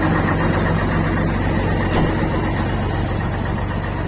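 Truck's diesel engine idling steadily with a low, even note through a newly fitted muffler, the old loud exhaust noise gone.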